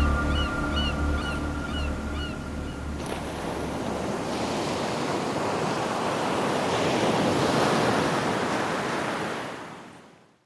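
Ocean surf washing in, a steady rush that swells and then fades out near the end. Over the first few seconds the tail of background music dies away under a run of short, quick chirps.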